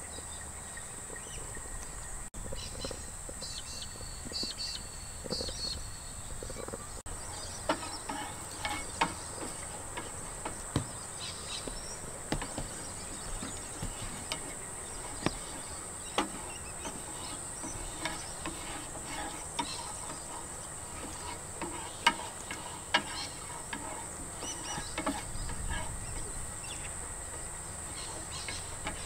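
Steady high-pitched drone of crickets or other insects, with scattered sharp clicks and taps of a wooden spatula working in a frying pan, the loudest about two-thirds of the way through.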